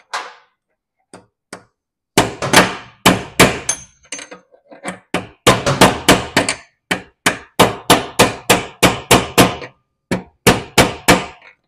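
Hammer driving a punch against a stuck tapered roller bearing in a lawn tractor mower-deck spindle housing: a long run of sharp metal-on-metal blows, about two to three a second, starting about two seconds in after a couple of light taps.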